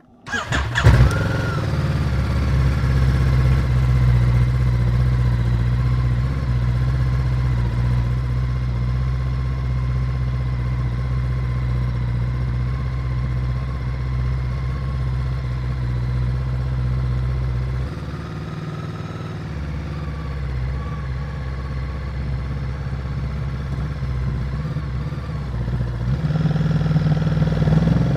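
Ducati Multistrada 950's V-twin engine with its stock exhaust starting up and settling into a steady idle. The low exhaust note drops at about two-thirds of the way through and picks up again near the end.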